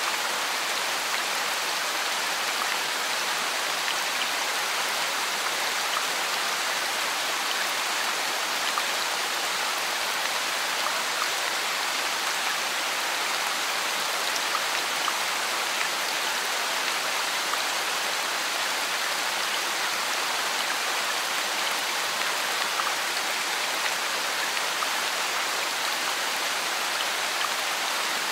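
Steady rain falling on banana leaves and dense leafy crops: an even, unbroken hiss with faint scattered drop ticks.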